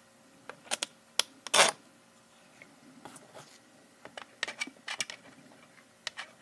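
Clicks and light knocks of RC helicopter rotor blades being fitted onto a plastic blade balancer. A quick run of clicks comes about a second in, with the loudest knock at about a second and a half, then fainter scattered clicks.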